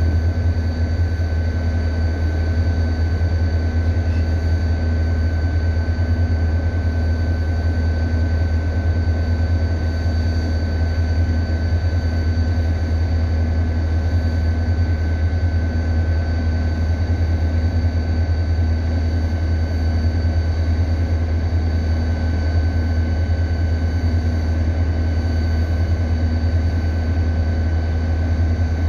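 Diesel engine of a stationary Korail Mugunghwa-ho train idling at a steady low drone, with a faint steady high whine above it.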